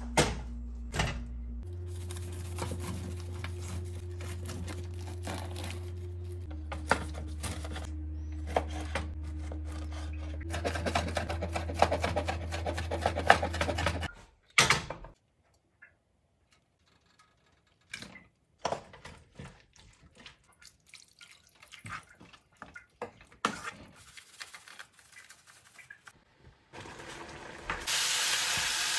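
Low sustained background tones that change pitch every few seconds, with handling clicks. Then scattered sharp knife chops on a wooden cutting board as pineapple is diced. Near the end, diced pineapple sizzles loudly in a hot wok.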